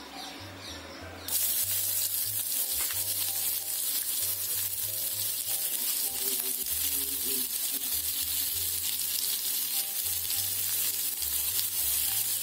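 Chopped onion dropped into hot oil in a kadai, starting to sizzle suddenly about a second in; a steady frying hiss continues.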